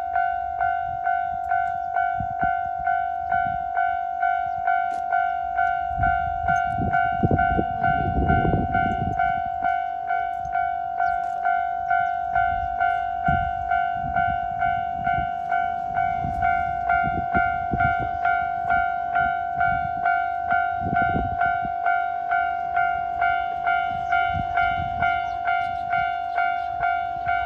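Japanese railway level-crossing warning bell ringing its 'kan-kan' at a steady pace, about three dings every two seconds, while a train rumbles past over the crossing, loudest about seven to nine seconds in.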